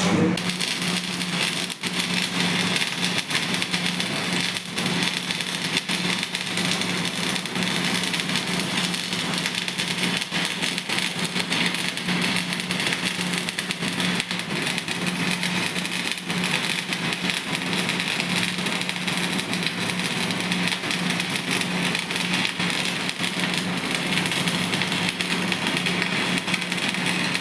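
Manual metal arc (stick) welding on mild steel plate: a steady, dense crackle and sizzle from the arc over a steady low hum.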